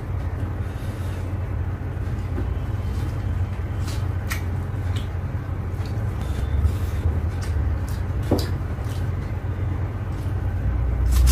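A steady low rumble, with a few soft clicks and smacks from eating chicken on the bone.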